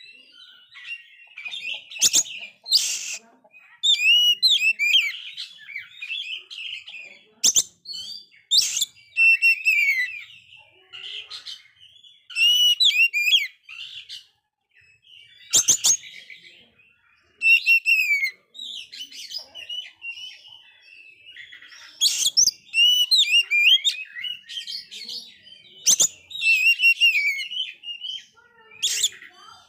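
A male Oriental magpie-robin (kacer) singing without a break: fast, varied whistled phrases with short pauses between them, and several sharp cracks among the phrases.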